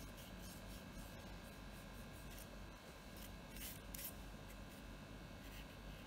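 Pencil scratching on paper in short, faint strokes, with two louder strokes close together about two-thirds of the way through, over a steady low hum.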